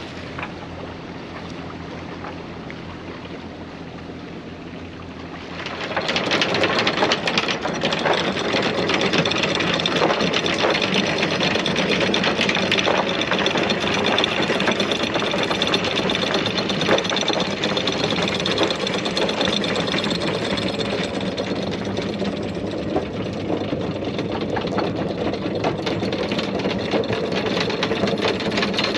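Boat's diesel engine running with a steady hum. About six seconds in it turns much louder, with a dense mechanical clatter that then holds steady.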